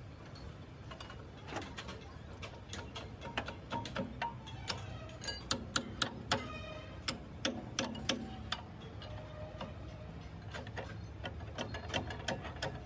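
Irregular metallic clicks and taps from hand tools handling metal machine parts, a few of them ringing briefly, over a low steady hum.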